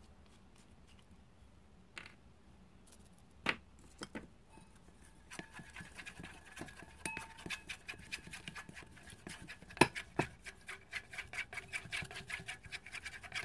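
Wooden popsicle stick stirring paint into clear glue in a stainless steel mixing bowl, scraping and tapping against the metal, with the bowl ringing faintly. A few separate taps come first, then quick continuous stirring from about five seconds in.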